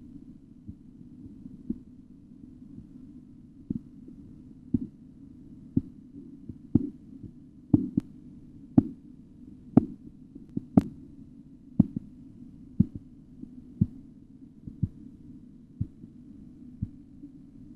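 Korotkoff sounds heard through a stethoscope as the blood pressure cuff deflates: regular taps about once a second over a low hum. They start faint, grow louder toward the middle, then fade again, the changing loudness of the arterial sounds as cuff pressure falls.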